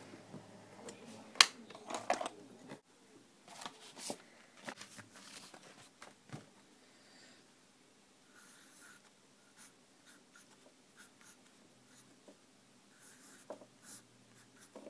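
A wooden pencil scratching on lined paper in short strokes as stick figures are drawn. A few sharp clicks and knocks come in the first three seconds, the loudest about a second and a half in.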